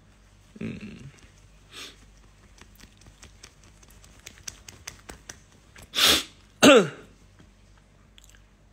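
A man sneezes once, about six seconds in: a sharp noisy intake and then a loud burst that falls in pitch. Before it comes a short murmur and faint scattered clicks.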